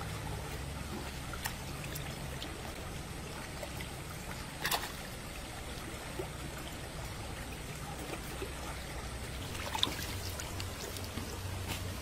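Shallow stream water trickling steadily, with a few brief sharp splashes of hands working in the water, one about halfway through and two near the end.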